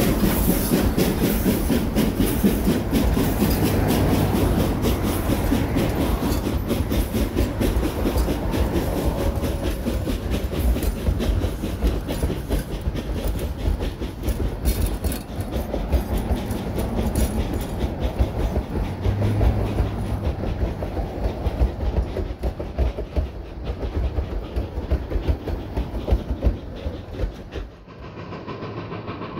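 Narrow-gauge Durango & Silverton passenger coaches rolling past, their wheels clattering over the rail joints in a steady rapid clicking. The clatter grows thinner in the second half and drops away suddenly near the end.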